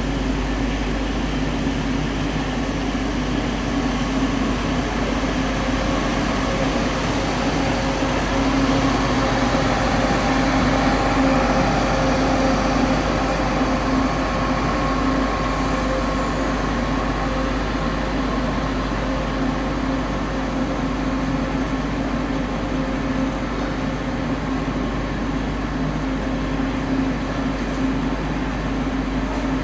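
Class 170 Turbostar diesel multiple unit at the platform, its underfloor diesel engines running with a steady hum, a little louder about nine to thirteen seconds in.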